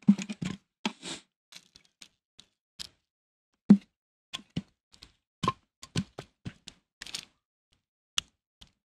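Split firewood logs knocking against each other and the rusty metal fire pit as they are stacked and shifted by hand: a string of separate wooden thunks and clacks, the loudest near the start and just under four seconds in.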